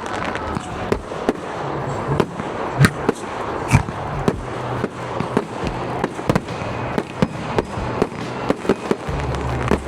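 Fireworks display: a rapid, irregular string of bangs and cracks over a continuous crackling hiss, with the loudest bangs about three and four seconds in.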